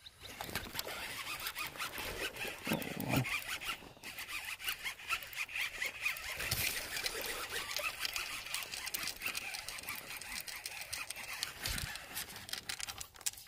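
Baitcasting reel being cranked through a retrieve: a fast, steady clicking whir, with a couple of dull thumps, one about three seconds in and one near the end.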